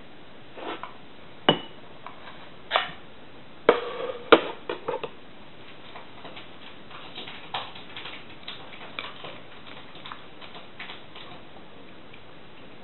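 Kitchen knife knocking on a wooden cutting board and clinking against a ceramic bowl while a persimmon is cut and its pieces moved into the bowl: a handful of sharp clicks in the first five seconds, then fainter light taps and handling noises.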